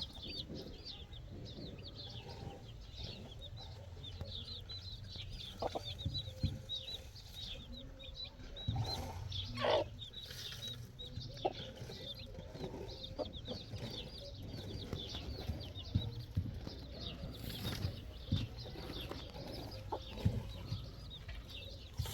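Birds chirping continuously in many short, rapid high calls, with scattered low knocks and thuds underneath.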